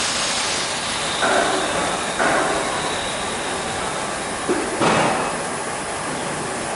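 Techduc BL1-H brake lathe resurfacing a brake drum: the tool bit cutting the spinning cast-iron drum gives a steady scraping hiss with a faint high whine. The scraping swells briefly a few times, most strongly about five seconds in.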